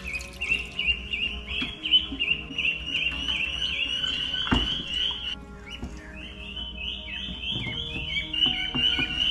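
Ducklings peeping continually: a rapid run of short, high, falling chirps, several a second.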